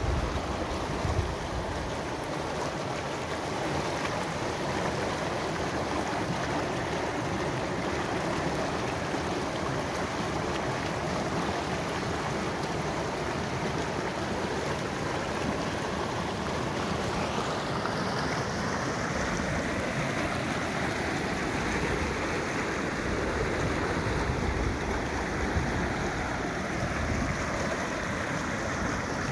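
Swollen stream of muddy overflow water rushing and churning over rocks, a steady whitewater rush.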